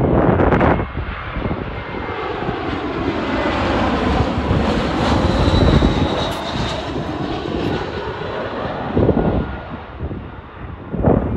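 Airbus A320 passing low overhead on final approach with its gear down. Its twin turbofan engines' jet noise swells to a peak about halfway through and then fades, with a whine falling in pitch as it passes.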